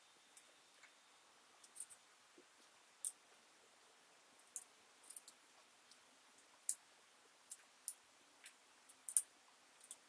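Jigsaw puzzle pieces picked from a pile on a table and pressed into a puzzle board, making faint, irregular light clicks and taps.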